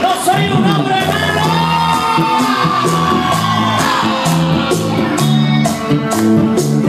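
Live bachata band playing, with a male lead singer holding a long sung line that slowly falls in pitch over bass notes and steady, fast high percussion.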